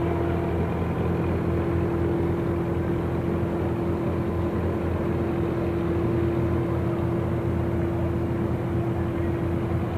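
A boat engine running steadily, a constant unbroken drone at an even pitch.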